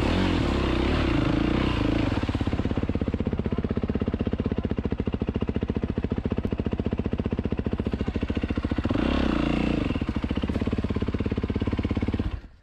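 Dirt bike engine running: revving at first, then settling to a steady throbbing idle with one short blip of throttle about nine seconds in, then cutting off abruptly just before the end.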